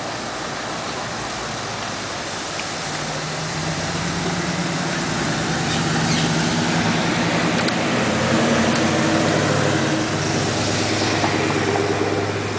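Engine of a classic woodie station wagon running at low speed as it cruises slowly past, a steady low hum that holds one pitch and grows louder about four seconds in, over street traffic noise.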